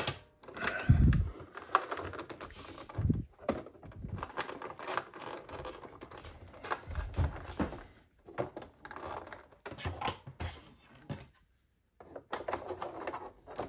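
Hard plastic clicks, taps and scratchy handling noises as a coiled power cord is pushed into the rear compartment of a Sanyo M 9830K boombox and the plastic compartment cover is fitted back on, with a few dull knocks against the cabinet.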